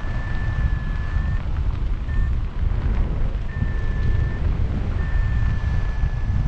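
Wind rushing over the microphone in flight under a paraglider, a heavy low rumble. A steady high electronic tone sounds over it in stretches of about a second, three times, with a short blip between.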